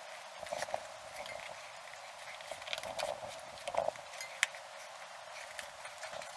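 Hands working a knobby mountain-bike tyre bead onto the rim over a foam rim insert: irregular rubbing and clicking of rubber against the rim, with a sharp click about four and a half seconds in.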